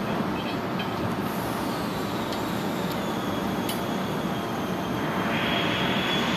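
Steady workshop machinery drone and hiss, with a few faint metallic clicks as an Allen key turns the screws fixing a steel base plate; a louder hiss joins about five seconds in.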